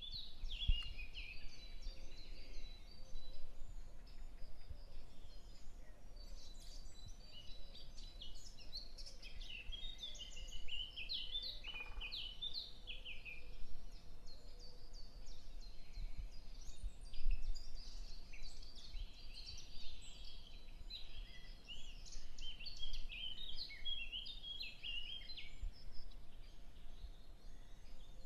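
Many birds chirping and singing, short high calls overlapping one another, over a faint low rumble.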